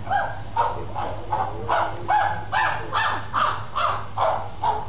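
A monkey calling over and over in short, pitched calls, about two and a half a second, growing louder in the middle of the series.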